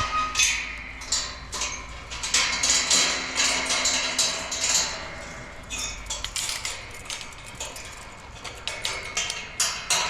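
Irregular clattering knocks and clicks, several a second, with a faint low rumble that stops about six seconds in.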